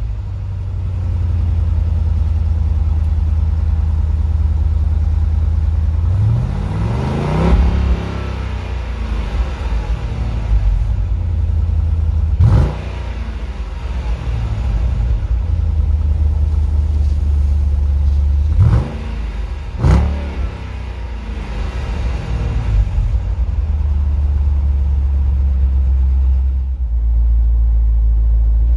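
2016 Jeep Grand Cherokee SRT's 6.4-litre V8 idling at the exhaust tips, revved up and back down about seven seconds in. It is then blipped sharply once about twelve seconds in and twice more around nineteen to twenty seconds in.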